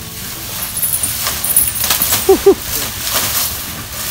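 Baby elephant scuffing and squirming in a pile of loose sand, with rustling scrapes. A little over two seconds in come two short, loud pitched squeaks in quick succession.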